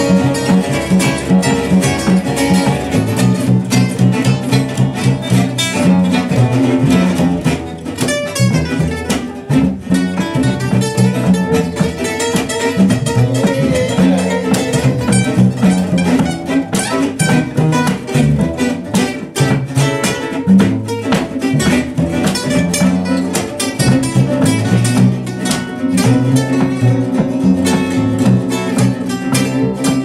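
Gypsy jazz played on two acoustic guitars and a double bass: the guitars pick quick runs of notes over strummed chords, and the bass line is plucked underneath.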